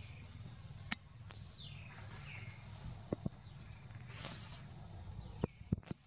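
Forest canopy ambience: a steady high-pitched insect drone, with high calls that sweep downward every second or two and a few sharp clicks over a low rumble.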